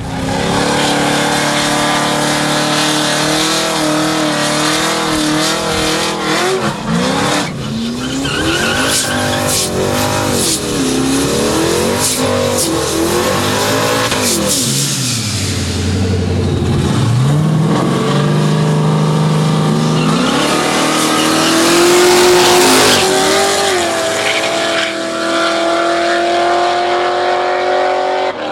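Drag-race car engines revving hard, the pitch sweeping up and down again and again, then climbing and holding high over the last few seconds as the cars accelerate away.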